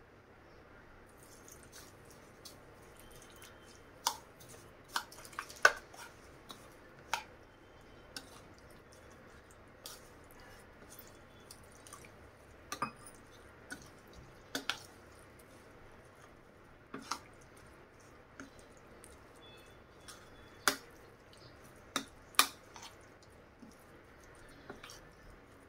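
Metal spoon stirring a thick semolina and chopped-vegetable mixture in a ceramic bowl, clinking sharply and irregularly against the bowl's rim and sides, with soft squishing in between.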